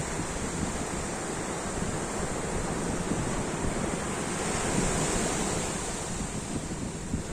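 Ocean surf: a steady wash of waves, with one swell building to its loudest about five seconds in, then easing off.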